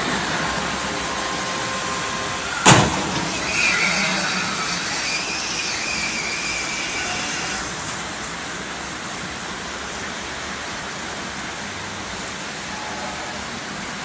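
Steady hiss of rain and traffic on a wet road, with a single sharp bang about three seconds in.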